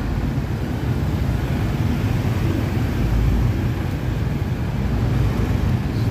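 Steady low rumble of riding through light city street traffic: a motorbike engine and road noise, with wind on the microphone.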